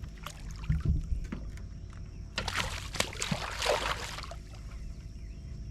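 Water splashing and sloshing beside a boat for a couple of seconds near the middle, as hooked bass are brought to the boat. A few light clicks and a low steady rumble lie underneath.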